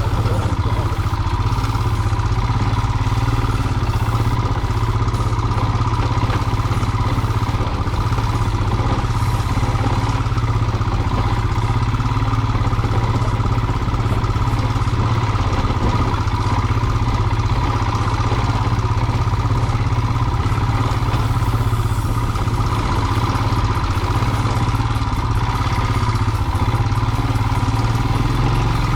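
Single-cylinder Royal Enfield motorcycle engine running steadily as it is ridden.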